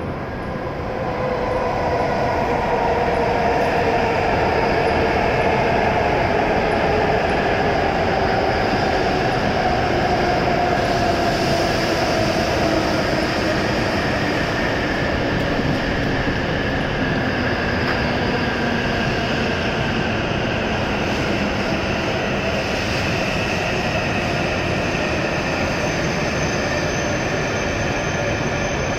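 W7 series Shinkansen pulling into the platform and slowing to a stop: a loud, rushing rolling noise with a motor whine that glides steadily down in pitch as the train slows. A thin high squeal comes in near the end.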